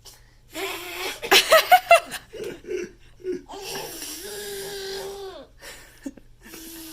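A young child laughing in a run of quick loud bursts, then making long, breathy held voice sounds.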